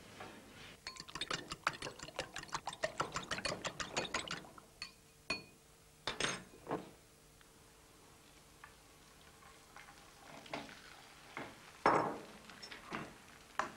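A fork beating eggs in a glass bowl: a fast, even run of clinks against the glass, about seven a second, for roughly four seconds. A few separate clinks and knocks follow, with a louder knock near the end.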